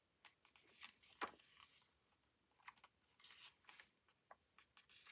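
Faint rustling of photobook pages being turned by hand: a few short paper swishes and light taps.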